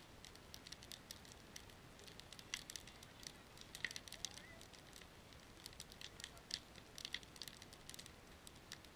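Wood fire of split logs crackling, with irregular sharp snaps.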